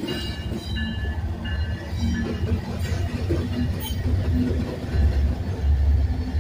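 Light engine move of BNSF and Watco diesel locomotives rolling past: a deep, steady diesel rumble that grows louder about five seconds in as the Watco unit comes by. Thin high metallic tones ring in the first two seconds.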